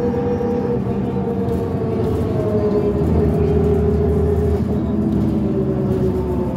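A 2005 New Flyer D40LF transit bus's Cummins ISL diesel engine and ZF transmission running while the bus is underway, heard from inside the bus: a steady low rumble with a whine that slowly drops in pitch.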